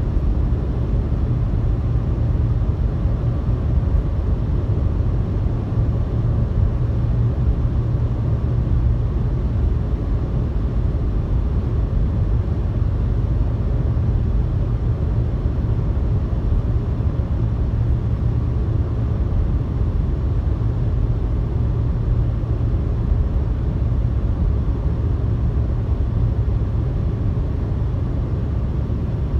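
Car cruising on a highway, heard from inside the cabin: a steady low rumble of road and driving noise with no changes or distinct events.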